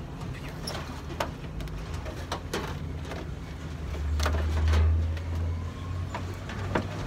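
A riding lawn tractor being manhandled up into a pickup truck bed: scattered knocks and clanks of its body and wheels against the truck, over a steady low hum. A low rumble swells about four seconds in and fades again.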